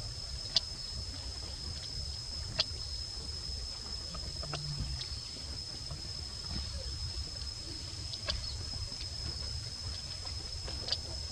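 Outdoor background noise: a steady low rumble with a thin, high, unbroken tone above it, and a few sharp clicks scattered through, the loudest two in the first few seconds.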